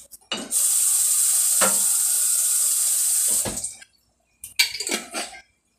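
Kitchen tap running for about three seconds, putting a little water into the emptied pasta-sauce jar to rinse out the last of the sauce. A short clatter of knocks follows.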